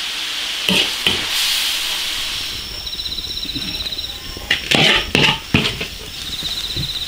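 Hot wok hissing as braised beef tendon and sweet potato is ladled out onto a metal serving tray, the hiss dying away after a couple of seconds. A metal ladle clinks and scrapes against the wok and tray, a few times near the start and in a quick cluster near the middle.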